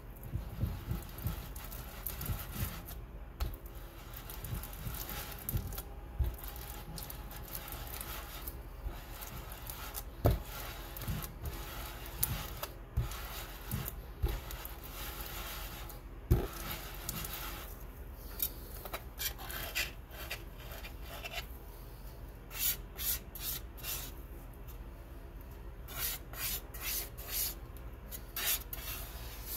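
A muller grinding Prussian blue pigment into linseed oil on a plate: a steady gritty rubbing in circles, with an occasional knock. Near the end come sharper, shorter scrapes as a palette knife works the paint on the plate.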